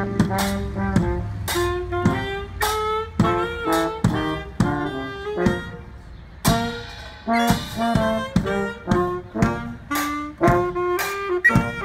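Small street band of saxophone, brass horn and drum playing a tune: short notes from the horns over a steady drum beat.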